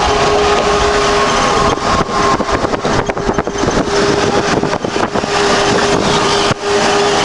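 Steady engine drone and road noise heard inside a moving truck's cab, with a humming tone running through it. For a few seconds in the middle the sound turns choppy and uneven, and it dips briefly near the end.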